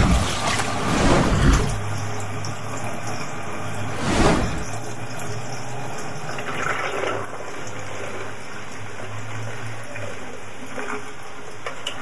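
Wash water pouring from a mini washing machine's drain hose into a floor drain, a steady splashing flow with louder gushes near the start and about four seconds in.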